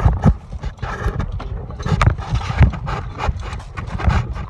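Irregular knocks and clatter over a rumble of handling noise on the phone's microphone.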